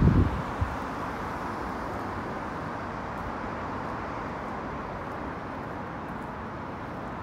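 Steady road traffic noise from cars on a city road, an even rushing hum. A few brief low thumps at the very start.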